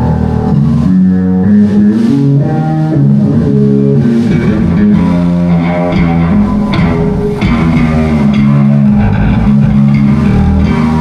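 Electric bass guitar played through a venue PA during a soundcheck: a loud run of sustained low notes stepping from pitch to pitch.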